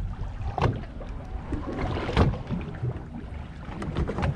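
Water slapping against a small boat's hull, with a few sharp slaps, over a low steady hum.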